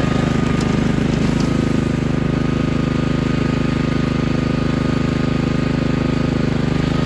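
Billy Goat hydraulic brush hog's engine running steadily while the walk-behind cutter mows through overgrown grass and weeds.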